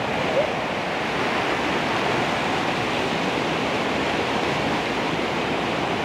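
Waterfall rushing down a rock face, heard close up: a steady, even rush of water.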